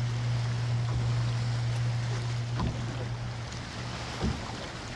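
A boat motor's steady low hum, fading about three and a half seconds in, over wind and water noise, with a few faint knocks.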